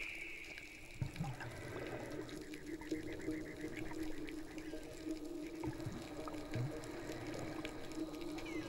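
Underwater sound picked up by a diving camera: faint water noise with scattered clicks and soft knocks. A steady low hum comes in about two and a half seconds in and holds.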